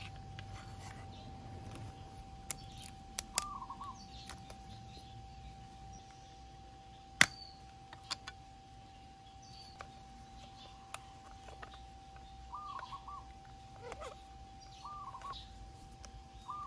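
Sharp plastic clicks and snaps as a top case's tail-light lens and housing are pulled apart by hand, with one loud snap about seven seconds in. A bird repeats a short chirping call about four times.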